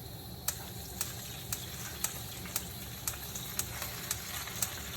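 Spinach and garlic sizzling in hot olive oil in a covered pan on high heat, with a steady hiss and sharp ticks about twice a second.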